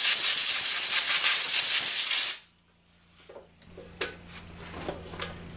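Compressed-air hose blowing out the freshly counterbored screw hole in a scooter headset clamp: a loud, steady, high hiss that cuts off abruptly a little over two seconds in. A few light handling clicks follow.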